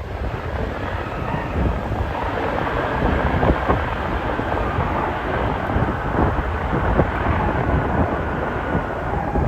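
Jet rumble of an arriving Emirates Airbus A380-800, with a faint steady whine above it, heavily buffeted by strong wind on the microphone.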